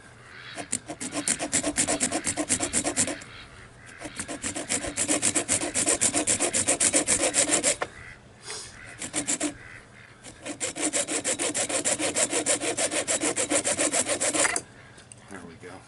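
Worn hacksaw blade sawing in quick short strokes at the metal pin of a clothing security tag. The strokes come in three long runs, with pauses about three and eight seconds in, and stop about a second before the end.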